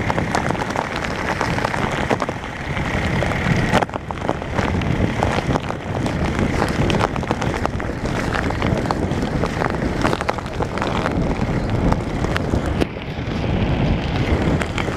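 Strong wind buffeting the microphone in a loud, gusting rumble, with many short crackles and pops running through it.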